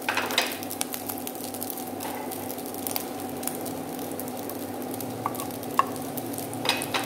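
Fried rice sizzling in a nonstick frying pan as a wooden spatula stirs and scrapes through it and beaten egg is poured over it, with a steady hum underneath. A few light taps come in the second half.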